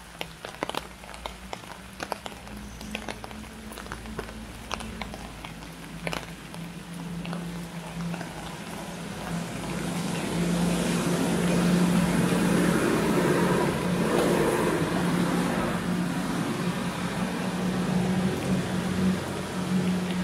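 A motor vehicle on a wet road: a steady engine hum with tyre hiss that swells from about halfway through and stays loud. Scattered sharp taps come in the first few seconds.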